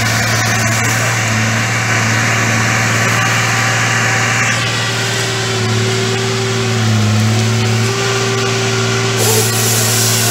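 Fabtek FT-133 tracked harvester's diesel engine running steadily under load while the processing head works pine, with a strong low hum and steady higher tones. A layer of hiss drops away about four and a half seconds in and comes back near the end.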